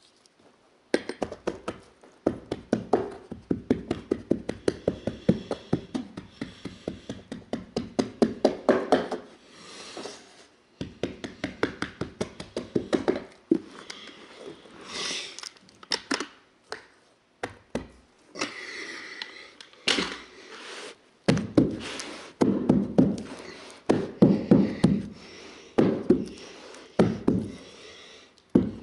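Runs of quick knocks and thumps from carpet-stretching tools working berber carpet on a stair: a knee kicker bumped forward to stretch the carpet and a stair tool tucking it into the back of the step.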